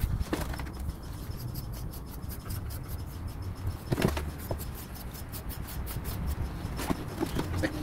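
Grooming tool and hands rubbing through a German wirehaired pointer's wiry coat in scratchy strokes, with a few sharper clicks, over a low steady rumble.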